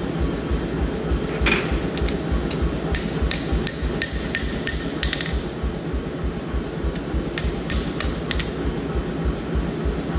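Hand hammer striking a forged stainless-clad San Mai chef's knife blade on a steel anvil: a quick run of about a dozen ringing taps, a pause, then four more near the end. Background music with a steady beat runs underneath.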